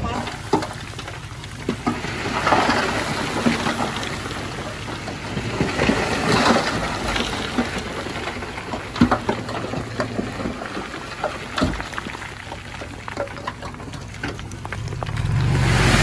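Loose stone clattering and sliding as a load of rock is pushed or shifted, a dense rush of many small knocks that swells and eases a few times. A heavy diesel engine runs low underneath.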